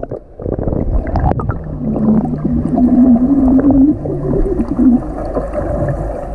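Pool water splashing and gurgling as a beginner swimmer kicks at the surface and blows bubbles underwater. A few sharp splashes come in the first second or so, then a low wavering hum-like tone runs for about three seconds.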